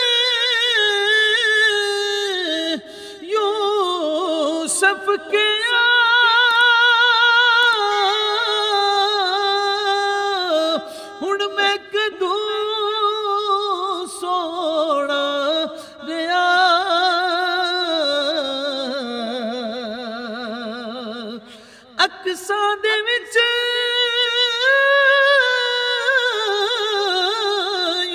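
A man singing a Punjabi naat unaccompanied, drawing out long held notes that waver in pitch. About twenty seconds in the voice sinks to a low sustained note, breaks off briefly, then rises again.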